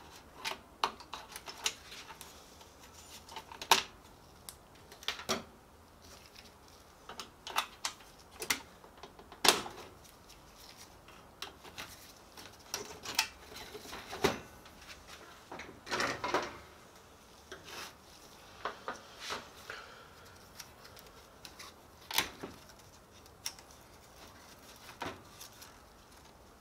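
Irregular clicks, knocks and light clatters of a copier operation panel's sheet-metal frame and plastic housing being handled and set down on a steel tabletop, with a short scrape about two thirds of the way through.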